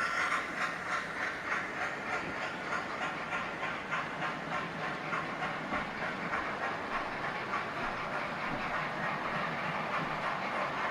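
Model train running round a layout, its wheels clicking over the rail joints about twice a second over a steady hiss of wheels and motor.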